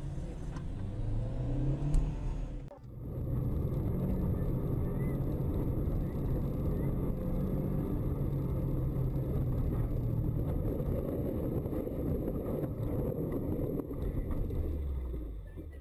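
Car engine and heavy rumble heard from inside a car as it ploughs off the road through deep snow. The engine note drops near the end. Before that comes a shorter stretch of road noise with a thump about two seconds in.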